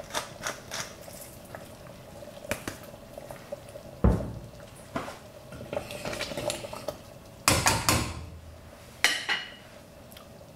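Wooden pepper mill grinding in a quick run of clicks, then a heavy knock and metal utensils stirring and clanking against a stainless steel saucepan of sauce, with two louder clanks in the second half.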